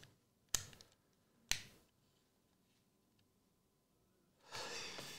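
Two sharp clicks about a second apart from a utility knife at a shrink-wrapped trading-card box, then plastic wrapping crinkling near the end.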